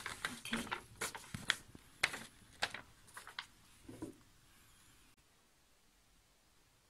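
Light, irregular clicks and rustles of a folded paper sachet being tapped as protein powder is shaken out of it into a glass of water. A soft knock follows about four seconds in, then quiet room tone.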